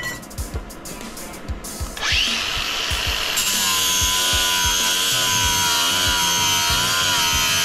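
Angle grinder spinning up about two seconds in, then running with a steady high whine as it grinds a steel deck plate, throwing sparks.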